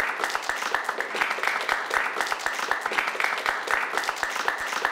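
A small crowd applauding, many hands clapping thickly and without a break.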